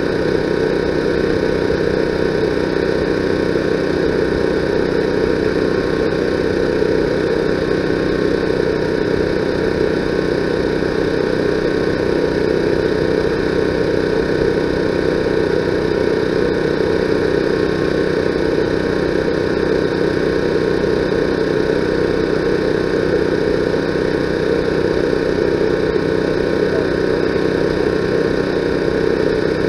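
A steady, unchanging mechanical drone, engine-like, with a few fixed tones over a dense hum.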